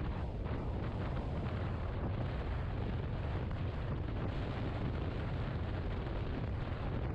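Wind buffeting the microphone of a Yamaha XMAX 250 maxi-scooter riding at speed, a steady low rumble with road noise in it.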